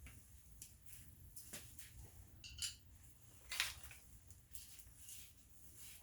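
Faint scattered clicks and light clinks of small parts and tools being handled, the loudest about three and a half seconds in, with a short high squeak about two and a half seconds in.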